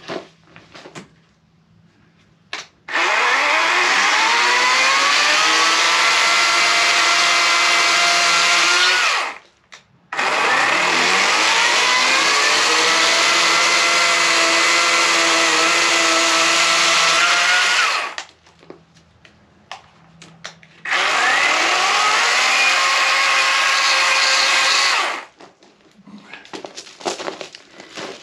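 Portable bandsaw mill's engine throttled up three times, each time climbing to full speed and holding steady for several seconds before dropping back to a low idle, as for short trimming passes on the log. Scattered light knocks between the runs.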